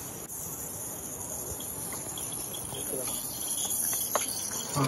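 Live-steam model steam locomotive hissing steam: a steady high-pitched hiss.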